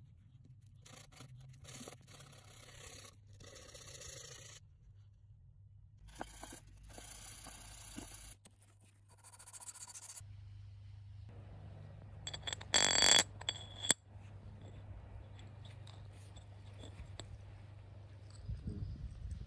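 A round metal blade rubbed by hand against sandpaper, heard as several short bouts of scraping with abrupt cuts between them. About two-thirds of the way through there is a brief, loud metallic ring, the loudest sound here.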